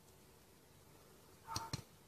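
Handling noise from a hand-held dagger: a brief scuff, then two sharp clicks about a fifth of a second apart near the end, over quiet room tone.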